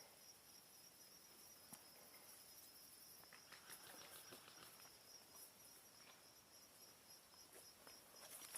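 Faint, steady chirping of crickets or other field insects, with a few soft rustles mixed in.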